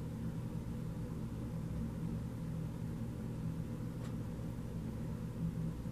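Steady low background hum of room noise, with a faint light tap about four seconds in as a card is laid down on the cloth-covered table.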